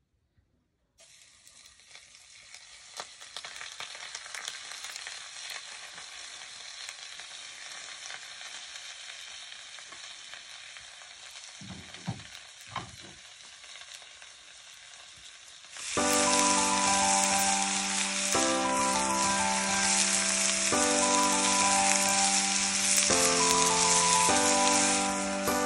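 Diced venison sizzling in a hot frying pan, starting about a second in as the meat goes in. About two-thirds of the way through, the sizzle gets louder and music plays over it.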